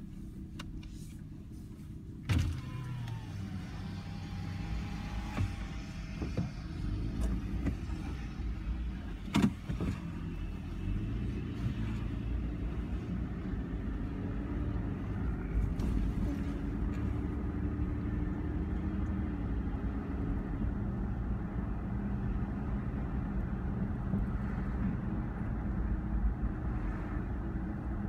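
Car engine running and driving, heard from inside the cabin: a steady low rumble that builds slightly as the car gets under way. There are two sharp knocks, one a couple of seconds in and a louder one near ten seconds.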